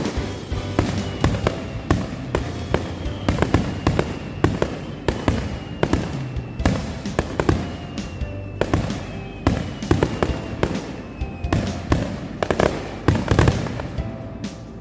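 A fireworks display with rapid, repeated bangs and crackling throughout, over music.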